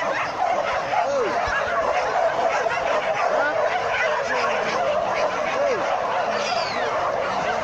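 A dense, continuous chorus of many leashed hunting dogs yelping, whining and barking at once, full of short falling cries, the sound of a pack excited and straining to be let go.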